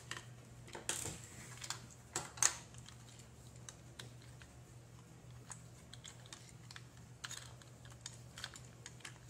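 Light scattered clicks and taps of hard plastic parts being handled and fitted together on a small plastic robot body, the sharpest about a second in and around two and a half seconds in, over a faint steady low hum.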